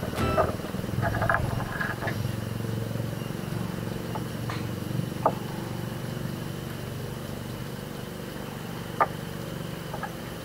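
A steady low motor hum, with a few sharp clicks of fishing tackle being handled in a wooden boat: two about halfway through and two more near the end.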